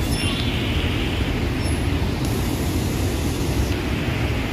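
Steady low rushing noise of floodwater running through a flooded road underpass, mixed with motorcycle engines running.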